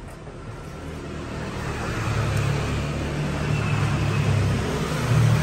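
A motor vehicle's engine, growing louder over the first two seconds and then running steadily.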